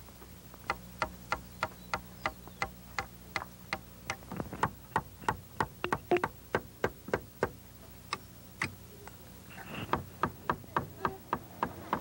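Hammer blows, struck evenly at about three a second, with each blow ringing briefly. They pause for about a second near the end, then resume.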